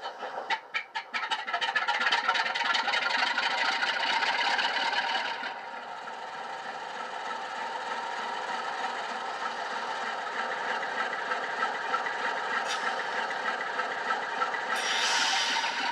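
Recorded Class 47 diesel sound from an ESU sound decoder, played through a model locomotive's small speaker. It starts with a few clicks, runs up loud, and drops to a steady idle about five and a half seconds in. A hiss of air comes in near the end.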